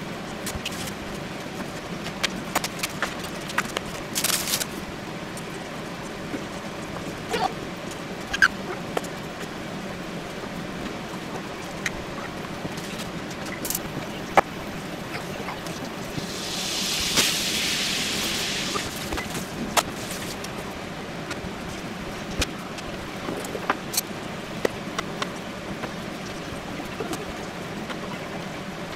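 Food-prep clatter: chopsticks scraping and tapping in a stainless steel mixing bowl, with scattered clicks and knocks of utensils and a knife on a plastic cutting board, over a steady background hiss. A little past the middle, a rustle lasting about two seconds.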